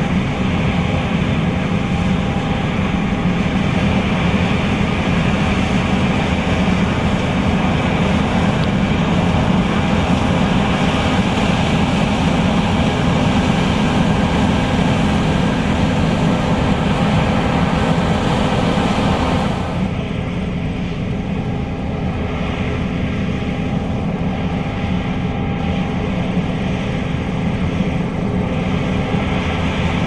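John Deere S670 combine running while harvesting soybeans: a steady engine and threshing-machinery drone with a held low hum. About two-thirds of the way in it turns a little quieter and duller, losing its hiss.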